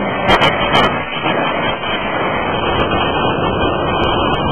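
Steady, loud machinery noise from a CNC hydraulic die forging hammer at work, with a few sharp clanks in the first second.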